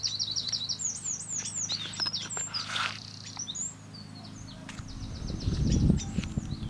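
Small birds chirping in quick runs of short, high notes, over a steady low hum. About five seconds in, a low rumble swells briefly.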